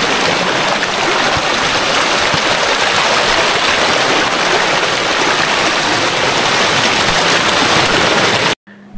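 Steady rushing of water in a rocky hill stream, cutting off suddenly near the end.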